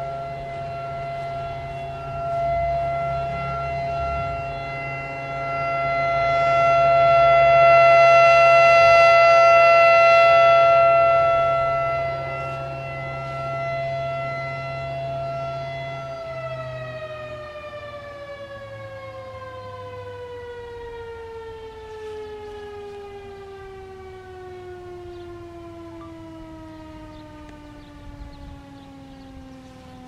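Federal Signal Thunderbolt 1000B siren sounding a steady alert tone. It swells louder and fades again as the rotating horn sweeps past, then about halfway through it winds down with a steadily falling pitch. It is running without its blower, which the uploader thinks is locked up.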